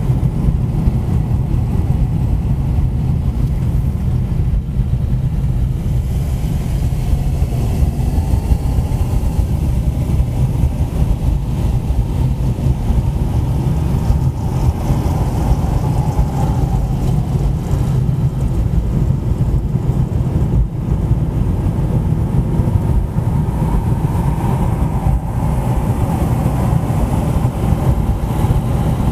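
A car driving, with a steady low rumble of engine and road noise. A higher hum swells twice, about halfway through and again near the end.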